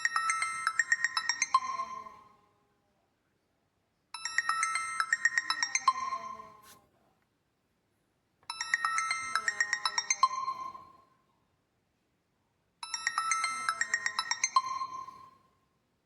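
Built-in phone tone of a Reeder P13 Blue smartphone playing through its speaker: a quick run of bright chiming notes lasting about two and a half seconds, repeated four times with short silences between.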